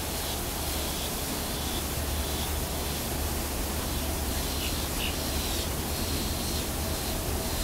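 Steady hiss with a low hum beneath it, and no distinct sounds.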